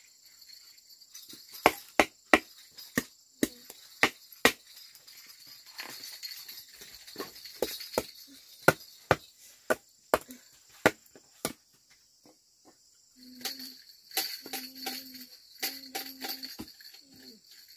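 Crickets chirping steadily, under a run of sharp knocks or taps at about two a second that stops about eleven seconds in. Several short low hums follow near the end.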